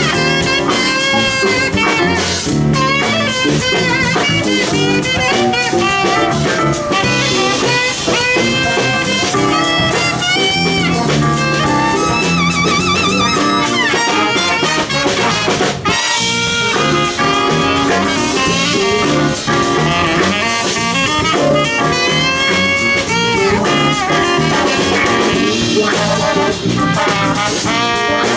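Jazz big band playing a funk-jazz number live: saxophones and brass over a drum kit.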